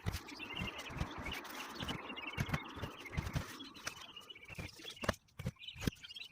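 Irregular knocks and scuffs from work on a shingled roof, with birds chirping in the background.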